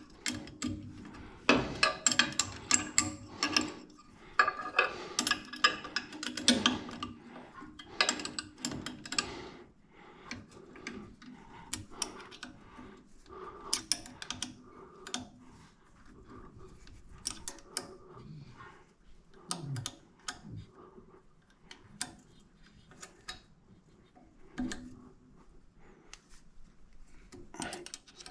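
Hand ratchet with an Allen socket clicking as bolts are tightened, in quick runs of clicks through the first several seconds, then scattered clicks and metal taps.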